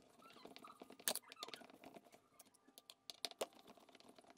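Faint small clicks and metallic ticks of a Phillips screwdriver backing screws out of a washer drain pump's metal mounting plate, with a sharper click about a second in and another near the end.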